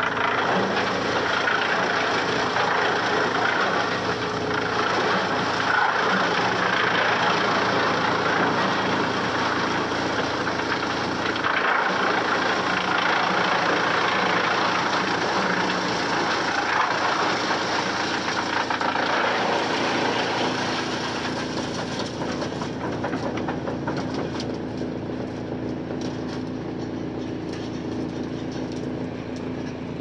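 An electric wood chipper fed by a slat conveyor runs under load, with a dense grinding noise as it chews sawmill slab offcuts into chips, over a steady machine hum. About two-thirds of the way through, the grinding eases and the hum is heard more plainly.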